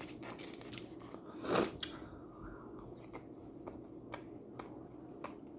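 A person chewing a mouthful of Hot Pocket with wet lip smacks and mouth clicks, with one louder smack or bite about a second and a half in.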